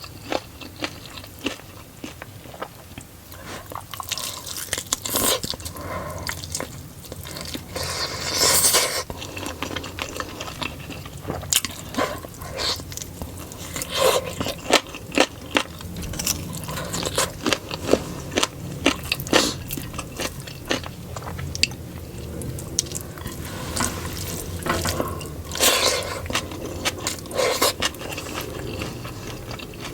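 Close-up eating sounds of chicken biryani being chewed, with wet mouth clicks, bites and occasional scrapes, and a longer noisy burst about eight seconds in and again near the end.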